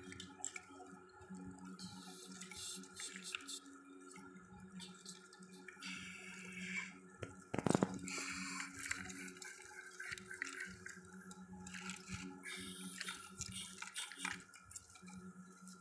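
Wooden sticks and a plastic toy dump truck being handled: scattered light clicks and knocks of wood on wood and plastic, with one louder knock about halfway through.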